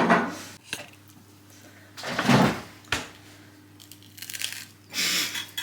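A few brief rustling, crinkling noises with small knocks from food and kitchen items being handled.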